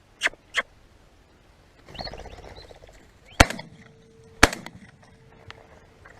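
Two shotgun shots about a second apart, the loudest sounds. They come after two shorter sharp sounds near the start and a second-long rush of noise with chirps about two seconds in.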